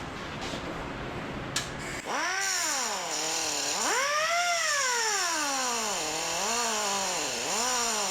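Power tool motor whining, its pitch rising and falling in four long swells over a steady high whine, starting about two seconds in.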